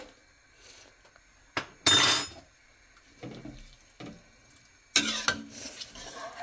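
Metal spoon stirring salt into rice, vegetables and water in a pressure cooker, clinking against the pot a few times, loudest about two seconds in and again about five seconds in.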